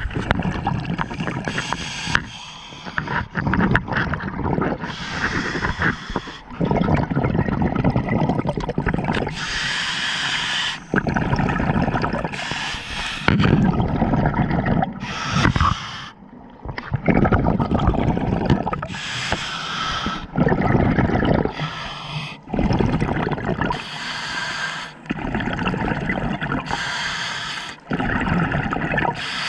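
Scuba diver breathing through a regulator underwater: short hissing inhalations alternate with longer gurgling rushes of exhaled bubbles, repeating every few seconds.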